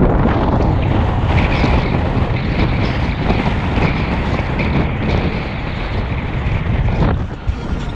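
Wind rushing over the microphone of a camera on an open-top convertible driving through city streets, a steady loud roar with road and engine noise underneath, easing briefly about seven seconds in.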